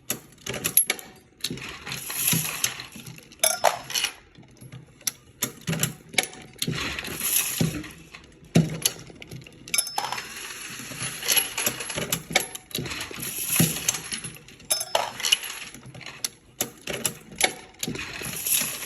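Dillon progressive reloading press loading 9mm rounds: repeated clicks and clanks of the press and the metallic clinking of brass, coming round in a cycle about every five to six seconds.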